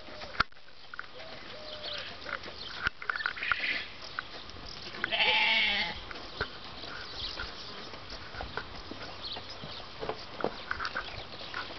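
Horse's hooves striking the sand-and-gravel arena footing as it trots on the lunge line, a scatter of short sharp ticks. About five seconds in, a loud animal call lasting about a second.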